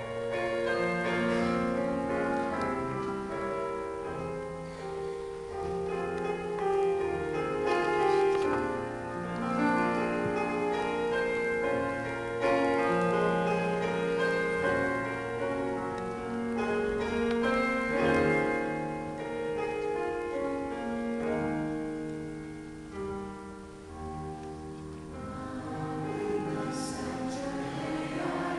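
Choir singing slow, held chords with piano accompaniment.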